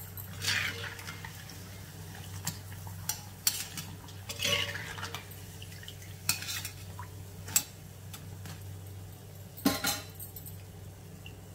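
Wire spider skimmer scraping and clinking against a cast-iron kadai in a series of separate knocks as fried bajjis are scooped out of the hot oil, with a faint sizzle of frying oil underneath.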